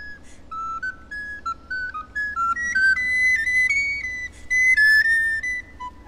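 Solo soprano recorder playing fast running passages of quick single notes, climbing to its highest notes about four seconds in.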